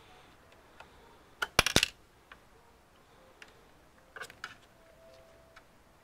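Small sharp clicks and taps of multimeter probe tips against the CMOS coin-cell battery and its holder while its voltage is measured: a quick cluster of clicks about a second and a half in, a few more around four seconds, and the odd faint tick.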